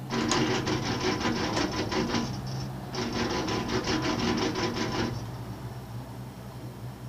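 Gondola cable car cabin passing a support tower, its grip and carriage wheels rolling over the tower's sheave rollers: a rapid clatter of about seven knocks a second, with a brief break about two and a half seconds in, stopping about five seconds in.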